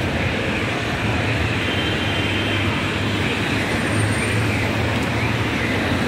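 Steady city street traffic noise: cars running along the road.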